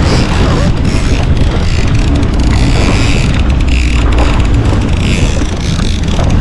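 Jet ski engine running under way, mixed with wind buffeting the microphone and water rushing past the hull.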